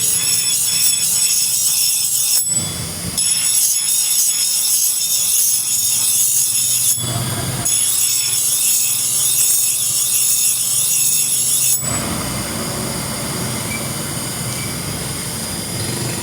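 Metal being worked with an abrasive tool: a steady, high-pitched scraping and squealing, broken by two short pauses, that turns duller and fuller near the end.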